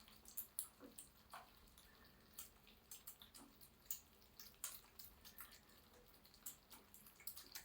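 A cat eating: quiet, irregular small mouth clicks and smacks, several a second.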